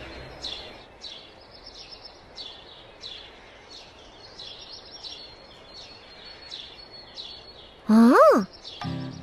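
Birds chirping in a cartoon's outdoor ambience: short high chirps repeating at an even pace over a faint hiss. About eight seconds in, a loud, short pitched sound slides up and quickly back down.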